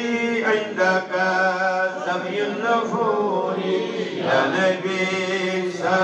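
A man's voice chanting in long, held melodic phrases over a steady low tone.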